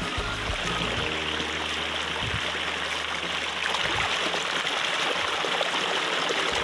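Shallow stream rushing over rocks, a steady wash of flowing water that grows a little louder about four seconds in.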